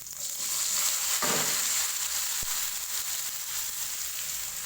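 Seasoning (bumbu) dropped into hot oil in a frying pan, sizzling loudly and steadily, easing slightly toward the end.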